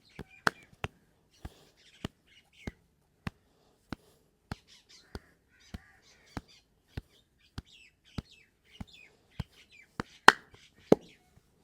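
Sharp hand slaps of a percussive massage in an even rhythm, a little under two a second, with two harder slaps near the end. Birds chirp in the background.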